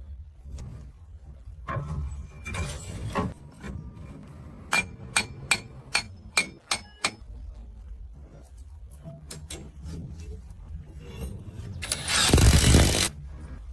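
Hand tools working on metal parts of an e-rickshaw motor: scattered clatter, then a quick series of sharp ringing metal taps, about two a second, midway through. Near the end comes a loud rushing noise lasting about a second.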